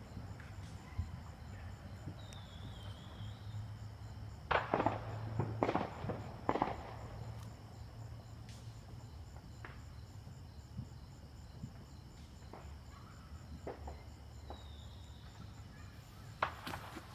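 Fireworks going off in scattered sharp cracks and pops: a quick cluster about four to seven seconds in, a few single pops, and more near the end, over a steady low hum.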